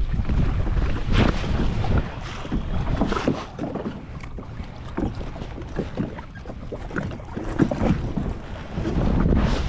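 Wind buffeting the microphone in gusts, strongest at the start and again near the end, over water splashing and lapping against the side of a jet ski.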